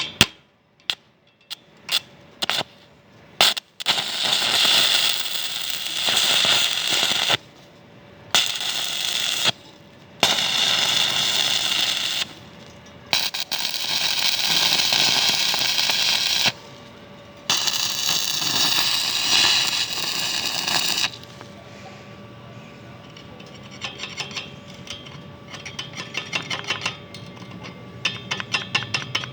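Electric arc welding: a few short sharp arc strikes at the start, then five runs of steady crackling hiss, each two to four seconds long with short breaks between. The last part is quieter, with rapid light ticking.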